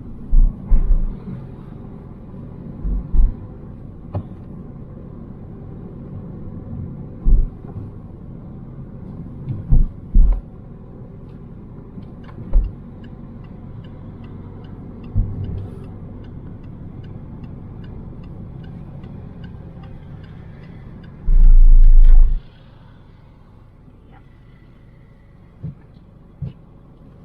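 Car driving, heard from inside the cabin: a steady low road-and-engine rumble with scattered low bumps. A run of light ticks comes in the middle, and a loud low thump lasting about a second comes near the end, after which the rumble drops quieter.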